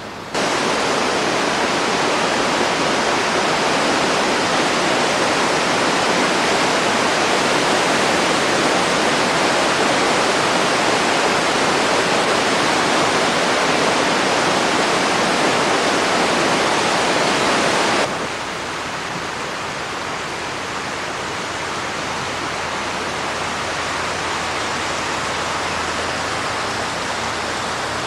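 Steady rushing of a mountain river flowing over rocks. It drops abruptly to a lower level about eighteen seconds in, then runs on steadily.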